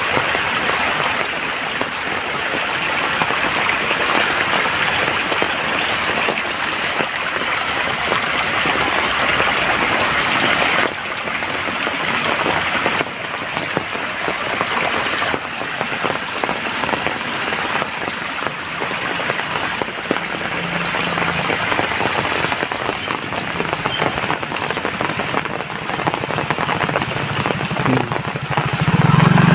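Steady heavy rainfall, a dense even hiss of drops. A low motor hum comes in near the end.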